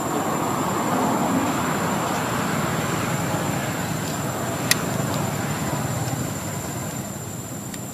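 Road traffic noise from a passing motor vehicle, swelling and then slowly fading, with a single sharp click a little after halfway.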